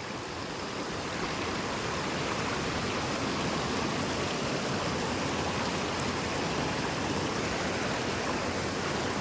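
Fast-flowing stream rushing steadily, a little louder after the first second.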